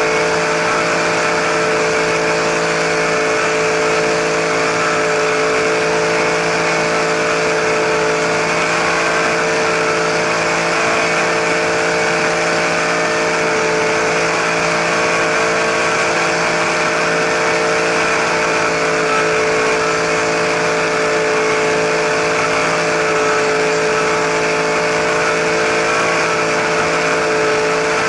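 Radio-controlled helicopter's motor and rotors running at a constant speed, heard from a camera mounted on the helicopter: a steady whine whose pitch does not change.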